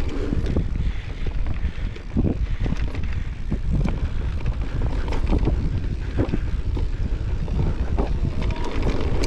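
Mountain bike riding down a rough dirt trail: wind buffeting the microphone over the rumble of the tyres, with frequent knocks and rattles from the bike as it goes over bumps.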